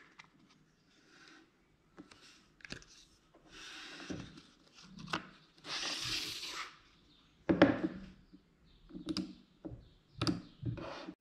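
Unboxing handling noise: a paper insert and cardboard box rustling and sliding on a table, with scattered light knocks and taps as the Magic Mouse 2 and the box are handled and set down. The loudest is a knock about seven and a half seconds in.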